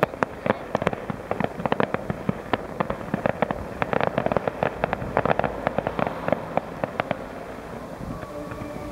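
Fireworks bursting in a rapid, irregular string of sharp bangs and crackles, thinning out and dying away near the end.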